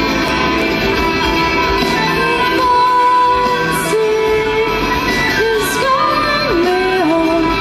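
Live progressive rock band playing: electric and acoustic guitars under a melody of long held notes that step up and down, in a large hall.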